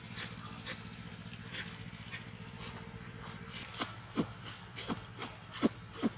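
A person gulping milk from a clay bowl: a run of swallows at about two a second, louder and deeper in the second half.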